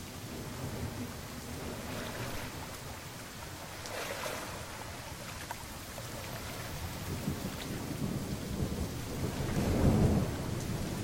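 Steady rain falling, with a low rumble of thunder that builds through the second half and peaks near the end.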